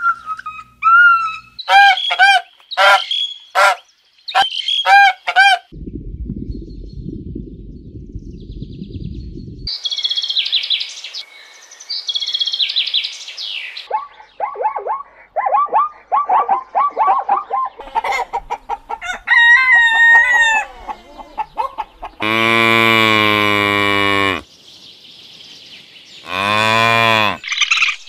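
A run of different animal calls cut one after another: short repeated calls for the first few seconds, a low rumbling stretch, high chirping, then two long, deep-pitched drawn-out calls near the end.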